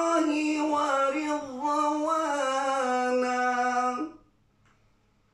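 A man's voice reciting the Quran in a melodic, chanted style, holding long notes and sliding through ornamented turns between them. The recitation breaks off about four seconds in.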